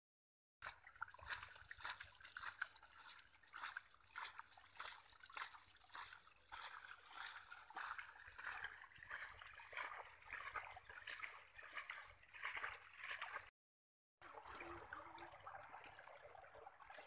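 Faint running and trickling of shallow muddy rainwater flowing over mud, with a brief break about 13 seconds in.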